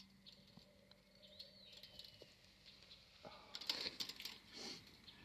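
Faint rustling and crackling handling noise that starts a little past halfway and comes in irregular bursts, over a low background hum.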